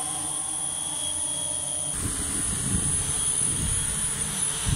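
Electric motors and propellers of large multirotor drones running: a steady high whine over a low rumble. The sound shifts abruptly about two seconds in.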